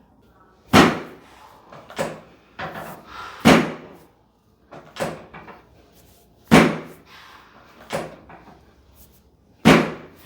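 A series of about eight loud, sharp thumps at irregular intervals of one to two seconds, each with a short ringing tail.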